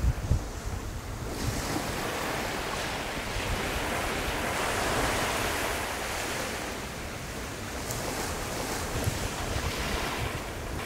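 Surf washing on the shore with wind buffeting the microphone: a broad rushing noise that swells around the middle and then eases off.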